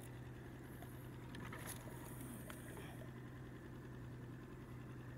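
A faint, steady low hum, with a few small clicks of fishing tackle being handled.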